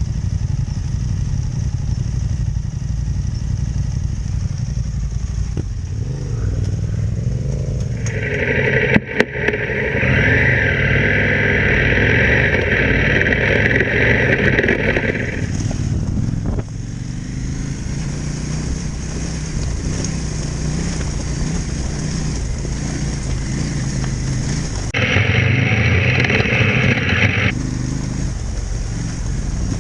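Adventure motorcycle engine running under way on a gravel forest track. The engine note grows louder and higher-toned for several seconds about eight seconds in and again briefly near the end, with a couple of sharp knocks around nine seconds in.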